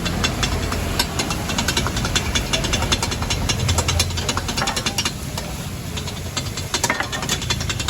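Rapid, continuous metal clatter of flat steel spatulas chopping kothu parotta on an iron griddle, over a steady low hum.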